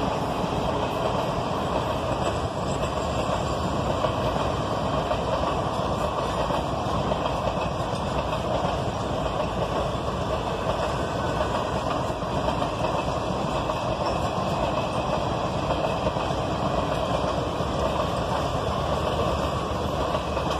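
Passenger coaches of a Janshatabdi Express rolling past on the track, with a steady noise of wheels running on rail.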